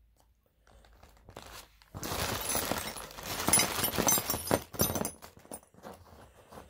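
Clear plastic parts bag being crinkled and rustled in the hands as it is opened, starting about two seconds in with a dense run of crackles and fading out near the end.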